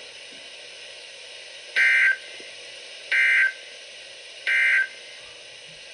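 Emergency Alert System end-of-message data bursts on a weather radio broadcast: three short two-tone digital screeches about a second apart, over a steady radio hiss. They signal the end of the severe thunderstorm warning message.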